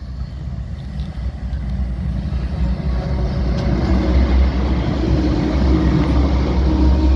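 Freight train's diesel-electric locomotives approaching and passing close by, a heavy low engine rumble that grows louder over the first few seconds and stays loud as the locomotives go past.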